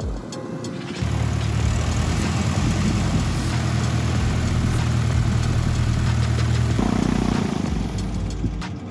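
An engine running steadily, starting abruptly about a second in with a low hum and a broad rush of noise over it; its tone shifts about two-thirds of the way through.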